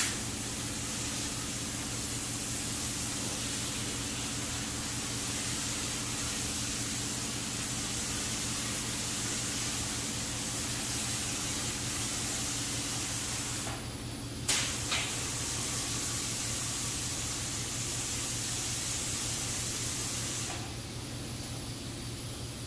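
Gravity-feed automotive paint spray gun hissing as it lays down a coat of candy paint, in two long passes. It pauses briefly about two-thirds of the way through, restarts with a sharp click, and stops shortly before the end. A steady low hum runs underneath.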